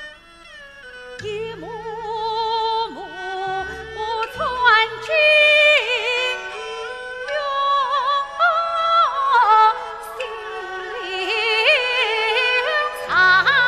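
Live Yue opera music: a traditional Chinese ensemble led by bowed huqin fiddles plays an ornamented melody with wide vibrato and sliding notes.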